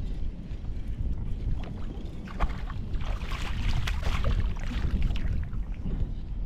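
Wind buffeting the microphone, with a hooked largemouth bass splashing at the surface beside the kayak from about two to five seconds in.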